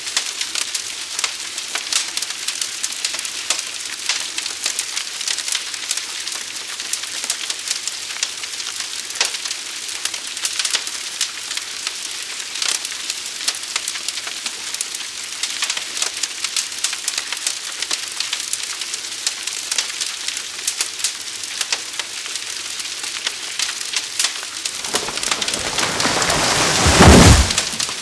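Forest fire burning: a steady hiss with constant crackling and popping. Near the end a loud, low rushing surge builds for a couple of seconds, then cuts off.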